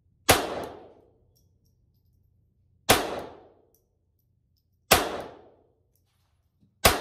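Four single shots from a Glock 44 .22 LR pistol, fired slowly about two seconds apart. Each is a sharp crack with a short echo trailing off.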